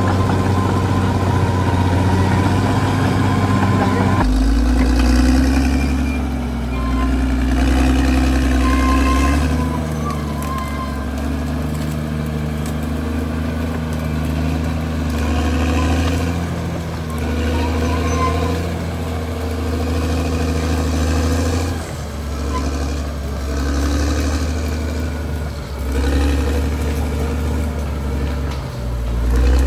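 Caterpillar D6R XL bulldozer's diesel engine running under load, its note shifting in steps as the load changes, most clearly about four seconds in.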